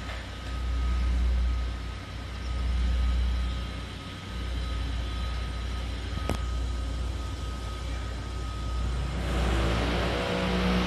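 A low rumble that swells and eases every second or two, with one sharp click about six seconds in; a fuller, music-like sound comes in near the end.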